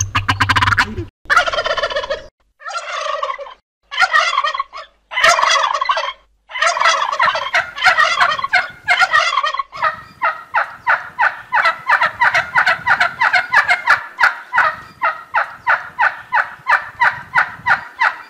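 Male turkey gobbling: several separate bursts of rapid rattling gobbles in the first six seconds, then a long unbroken run of quick rattling calls.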